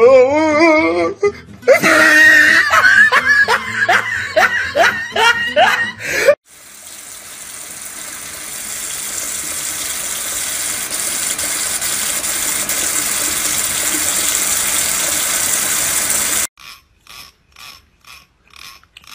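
Tap water pouring in a steady stream into a kitchen sink and onto greens in a plastic colander, growing gradually louder over about ten seconds. Before it, a high, wavering voice for about six seconds; after it, a few faint quick ticks.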